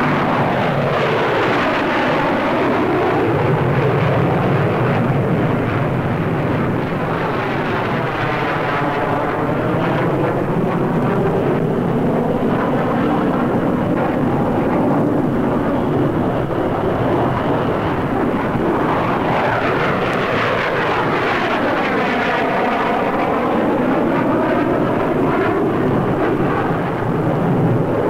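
Avro 698 delta-wing bomber prototype with four Rolls-Royce Avon jet engines flying past, a steady loud jet noise. It swells into a sweeping, phasing whoosh as it passes, at the start, about nine seconds in and again about twenty seconds in.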